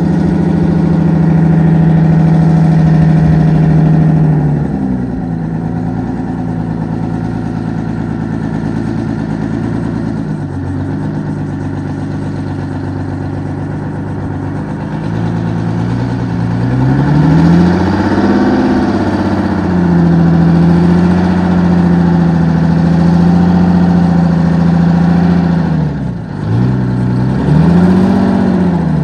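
Wabco Haulpak dump truck's supercharged 12V71 V12 two-stroke Detroit Diesel running under changing throttle: held at high revs, dropping back about four seconds in, climbing again past the middle and holding, then dipping and briefly rising once more near the end.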